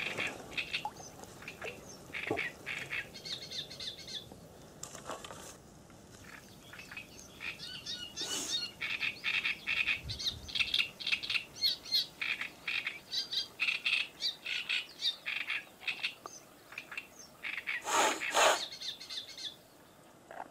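A songbird singing a long run of quick, chattering chirps, with a short pause about six seconds in. Two louder, harsher calls stand out near the end.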